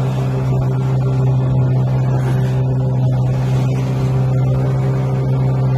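Small wooden boat's engine running steadily underway, a constant low drone with a wash of water and wind noise over it.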